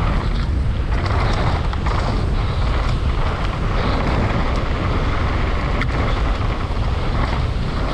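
Steady wind rushing over the camera microphone at downhill mountain-bike speed, with the low rumble of the bike's tyres rolling over dirt and loose gravel. There are a few faint knocks and rattles from the bike, one about six seconds in.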